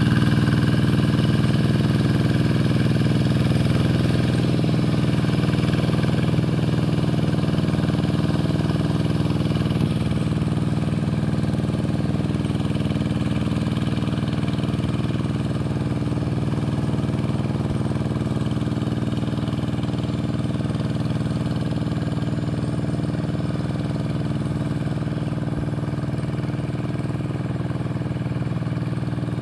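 Rice-field tractor engine running steadily at an even speed, its level easing off slightly over the stretch.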